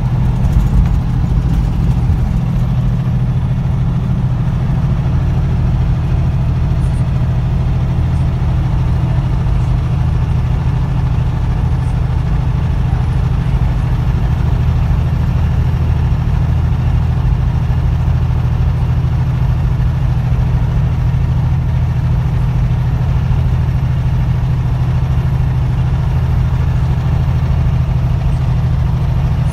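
Steady low drone of a truck's engine and road noise, heard inside the cab while cruising at highway speed.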